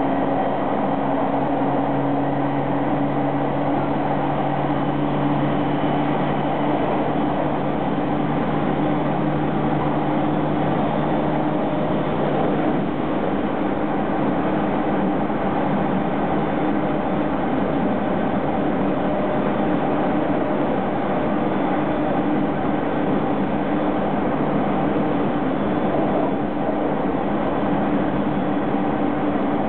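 209-series electric commuter train running at steady speed, heard from inside the car: a constant rumble of wheels and motors with a low, even hum through it.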